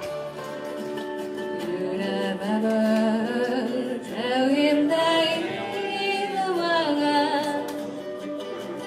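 Singing voices holding long notes that slide up and down in pitch, swelling loudest in the middle and easing off near the end.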